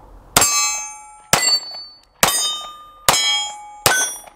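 Bersa BP9CC 9mm pistol fired five times, about a second apart. Each shot is followed by the ringing clang of a hit steel plate target.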